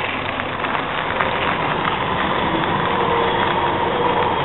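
Bicycle rolling along a gravel trail: a steady crunching rush of tyres on gravel, with a faint steady whine underneath.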